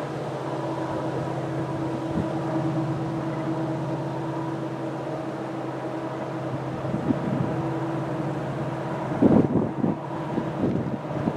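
Diesel locomotive engine running steadily: a low, even hum with a few steady tones above it. Wind buffets the microphone in gusts about nine seconds in and again near the end.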